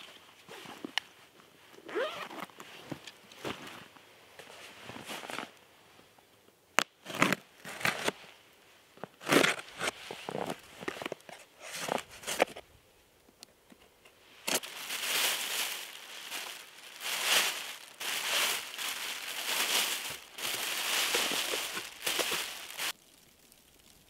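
A thin plastic bag lining a cardboard box crinkling and rustling in long stretches through the second half as it is handled open. Before that, scattered short knocks and rustles of gear being handled.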